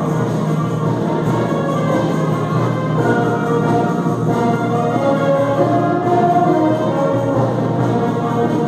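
Children's symphonic wind band playing in full ensemble, with brass and woodwinds holding sustained chords.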